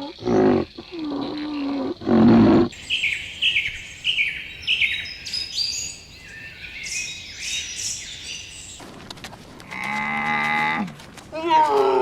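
A run of animal calls. First comes a deep, rough roaring call lasting about two and a half seconds. Then a bird gives a quick series of high chirps, each falling in pitch, for about six seconds. About nine seconds in, a low, drawn-out call from another animal starts, repeating near the end.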